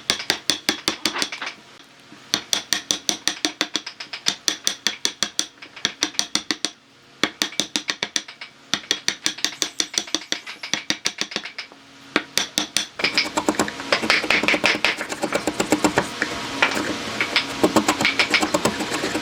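Quick, evenly spaced hammer strikes, about five a second, in runs broken by short pauses. About thirteen seconds in, a denser, continuous machine-like sound takes over.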